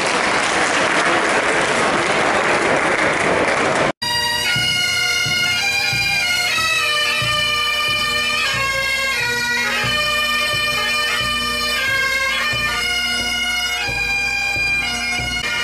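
Audience applauding for about four seconds, then, after a sudden cut, a pipe band of Highland bagpipes playing a marching tune over a steady drone, with a bass drum beating beneath.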